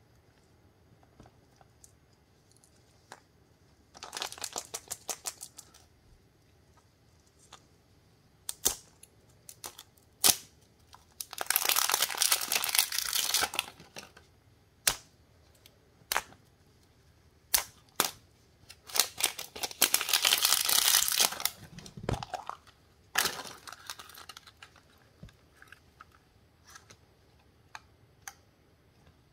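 A printed plastic wrapper being peeled and crinkled off a plastic surprise-toy ball, in several bursts of rapid crackling, with scattered sharp clicks and taps of hard plastic as the ball is handled and opened.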